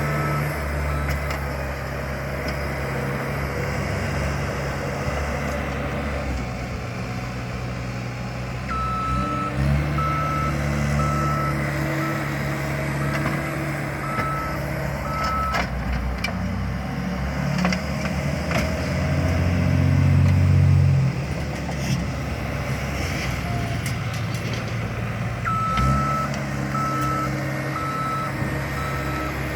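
Small bulldozer's diesel engine running and working, its note rising as it is throttled up. Its reversing alarm beeps steadily in two spells, from about nine seconds to the middle and again near the end, as the machine backs up.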